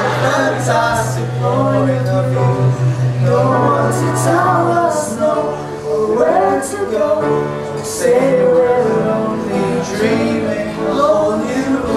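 A song sung over musical accompaniment, with a man's voice most prominent.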